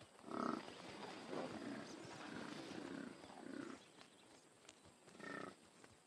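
Calls of large wild animals: a loud call just after the start, then a run of quieter calls for about three seconds, and one short call about five seconds in.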